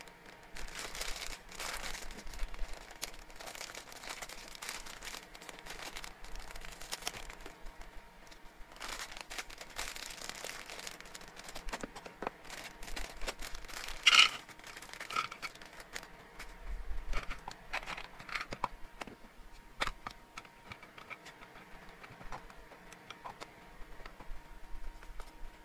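Plastic treat bag crinkling as it is handled and opened, with small dry biscuit treats rattling into a clear plastic tub and the tub's plastic lid clicking into place. Near the middle comes one sharp, louder plastic clack.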